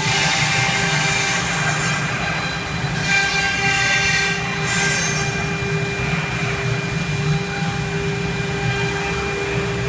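CNC router spindle running with a steady high whine, with the harsher rush of the bit cutting swelling near the start and again around the middle.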